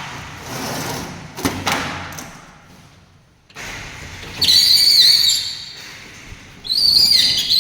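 A few knocks, then two high, wavering squeaks of about a second each in the second half, like a door hinge squeaking as a door is opened and closed.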